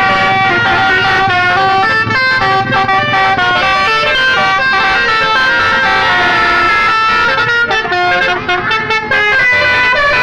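Bus telolet horns playing a tune of quick stepped notes, loud and continuous.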